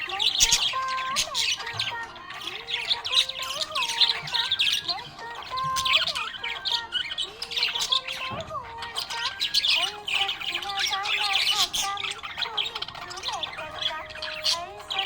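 Budgerigar chirping and squawking in quick, irregular bursts that follow one another with barely a pause.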